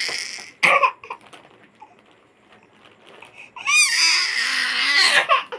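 A toddler's high-pitched crying: a short wail about half a second in, then a longer wail of about two seconds in the second half.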